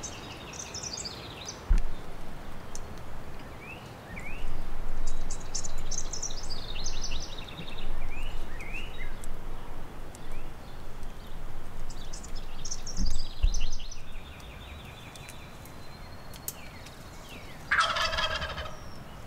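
Wild turkey gobbler gobbling several times, each gobble a quick rattling call. The last, near the end, is the loudest.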